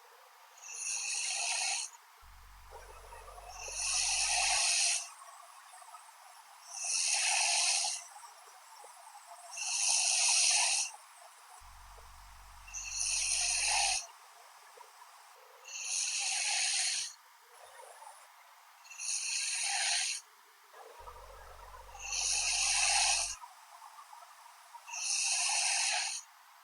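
A young woman snoring in her sleep: breathy snores about every three seconds, nine in all.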